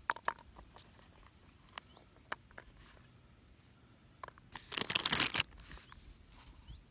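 Boilies dropped into a plastic bait crusher, knocking and clicking against it. About five seconds in comes a louder burst of rustling and crunching handling noise.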